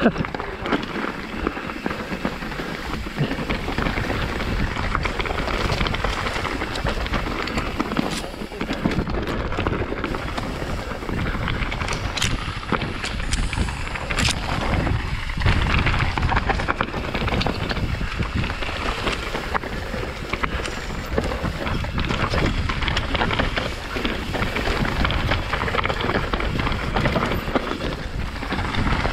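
A mountain bike ridden fast downhill, heard from a helmet camera. Tyres rumble over dirt, roots and rocks, the bike rattles and knocks with many quick clicks, and wind rushes over the microphone.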